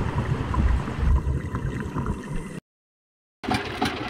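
Low, irregular rumble of water moving against an underwater action camera's housing, cut off dead after about two and a half seconds. After under a second of silence, a boat engine running steadily at idle.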